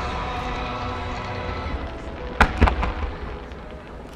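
Aerial firework shells bursting: a low rumble, then a quick cluster of two or three sharp bangs about two and a half seconds in, with music playing under them.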